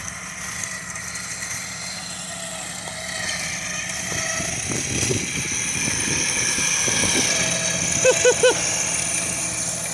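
Off-road truck engine running steadily, with a higher whine that grows louder from about three seconds in.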